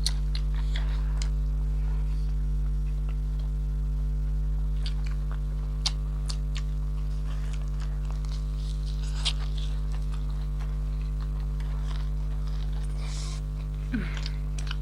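Steady electrical mains hum, with scattered short clicks and smacks of chewing food.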